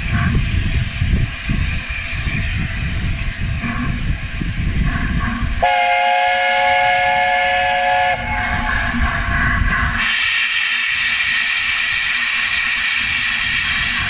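Steam locomotive LNER A4 60009 'Union of South Africa' sounds its chime whistle, a chord of several steady notes held for about two and a half seconds from around six seconds in. About ten seconds in, loud steam hiss starts as the cylinder drain cocks blow off at the front of the engine. A low rumble comes before the whistle.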